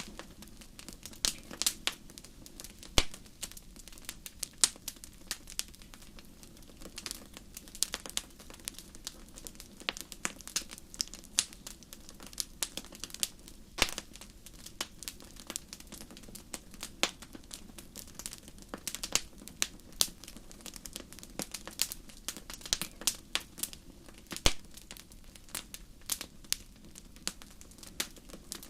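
Wood fire crackling, with irregular sharp pops and snaps, a few of them much louder, over a soft steady hiss.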